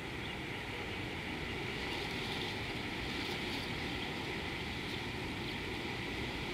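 Steady outdoor ambience at a watering hole: a constant low rumble with a steady higher hiss over it, unchanging throughout.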